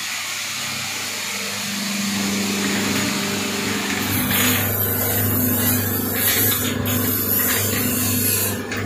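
Single-phase electric PET bottle shredder in a reverse vending machine running, a steady motor hum. A faint high whine joins about four seconds in.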